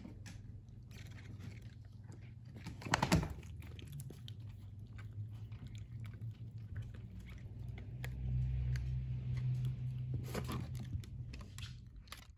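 A Shiba Inu chewing and gnawing on a hard rubber treat ball, its teeth clicking and scraping on the rubber, with a louder burst of crunching about three seconds in. A steady low hum runs underneath and grows louder near the end.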